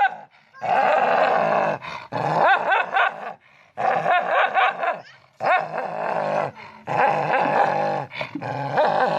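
A dog vocalizing in a series of drawn-out, wavering calls, about six in all, each cut off by a short break.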